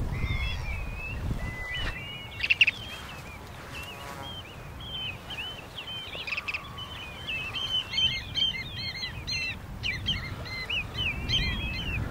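A flock of shorebirds calling: short chirping notes that overlap more and more thickly toward the end, over a low rumble of wind. A brief burst of clicks about two and a half seconds in is the loudest moment.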